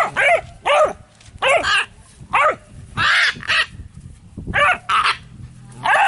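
Young dog barking repeatedly: about ten short, high barks, often in quick pairs.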